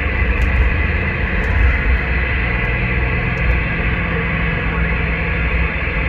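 CB radio receiver hissing with band noise and static between transmissions, over a steady low rumble.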